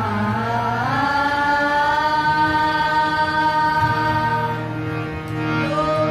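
A group of girls singing a qawwali together, the voices holding one long note through the middle, over a steady low drone.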